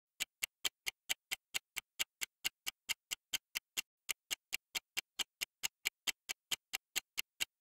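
Countdown-timer ticking sound effect: fast, even clock ticks, about four to five a second, starting a fraction of a second in.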